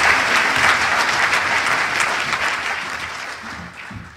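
Audience applauding, a steady clapping that fades away near the end.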